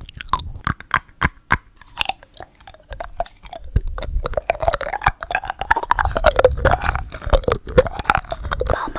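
Close-miked chewing and biting of candy: sharp wet mouth clicks and small crunches, growing busier and stickier about halfway through.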